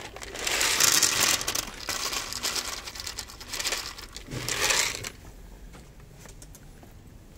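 Dry cat kibble poured from a plastic bottle into a plastic plate, the pellets rattling into the plate and spilling onto the corrugated roofing sheet. The pouring comes in a few surges and stops about five seconds in.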